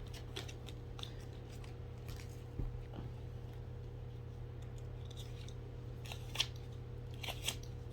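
Cards being handled and shuffled: scattered light snaps and clicks, two sharper ones near the end, over a steady low electrical hum.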